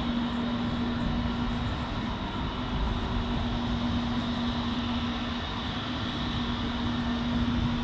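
Airbus A320neo's Pratt & Whitney PW1100G geared turbofan engines running steadily: a constant hum with one steady tone over a rumble.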